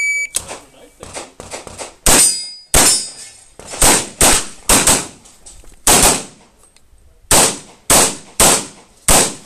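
A shot timer's start beep at the very start, then a pistol firing about a dozen shots in quick pairs and strings. A metallic ring follows some shots, steel targets being hit.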